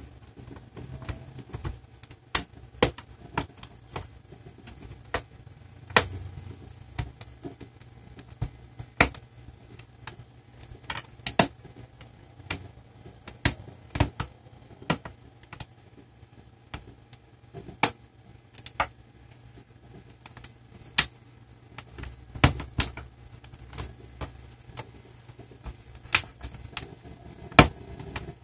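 Plastic clips of a laptop's base panel clicking and snapping as the panel is pried loose around its edges. The sharp clicks come irregularly, about one a second.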